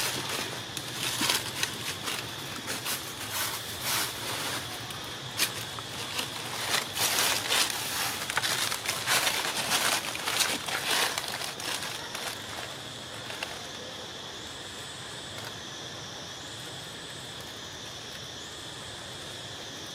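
Dry leaves crackling and rustling in quick, irregular clicks for the first twelve seconds or so. Then a steady high insect drone, with a higher note that rises and falls about every two seconds.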